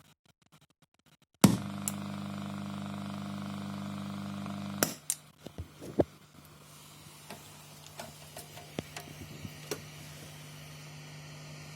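Faulty audio equalizer making a bad sound. About a second and a half in, a loud electrical buzz-hum starts with a click and holds steady for about three seconds, then cuts off with a click. Scattered crackles and pops follow over a quieter steady hum.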